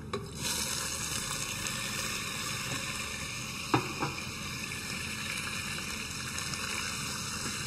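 Minced meat sizzling in hot oil in a pot, a steady sizzle that starts just after the meat goes in. Two sharp knocks of a utensil against the pot come close together about four seconds in.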